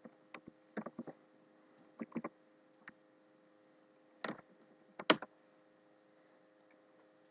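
Computer keyboard keystrokes, a few sparse key presses at irregular intervals with a louder single press about five seconds in.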